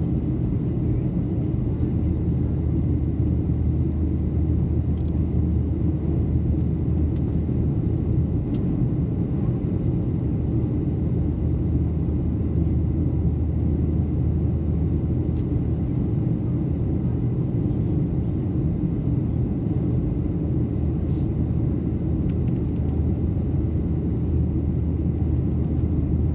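Steady low drone of a jet airliner's engines and airflow heard from inside the passenger cabin in flight, with a few faint ticks.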